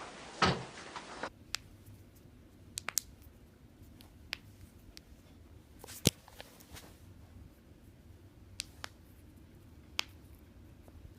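Toe joints cracking: a series of sharp pops spread over several seconds, the loudest about six seconds in.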